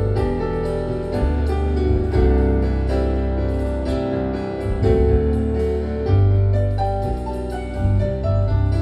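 Live band playing an instrumental passage of a ballad: piano-toned keyboard over bass and drums, with no singing.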